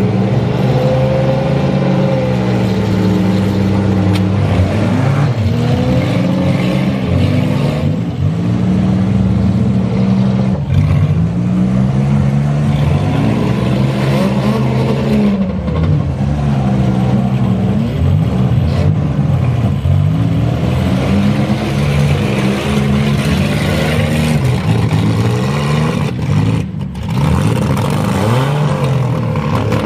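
Engines of several compact demolition-derby cars revving hard and easing off again and again, their pitch rising and falling as the cars push and ram each other.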